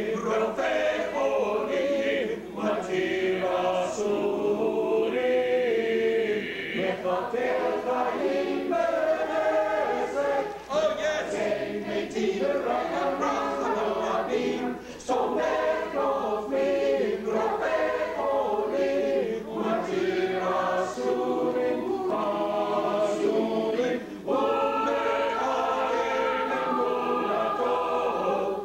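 Choir singing a passage in rehearsal, phrase after phrase, with a few brief breaks between phrases.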